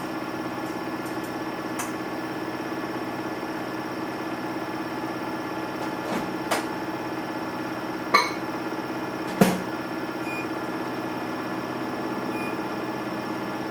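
Samsung Eco Bubble washing machine running with a steady low motor hum. Three sharp knocks come over about three seconds, starting a little past halfway; the last two are the loudest.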